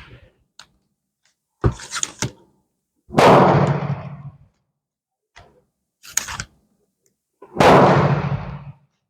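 Two loud gunshots about four and a half seconds apart, each ringing out and dying away over about a second, with a few short sharp clicks before each.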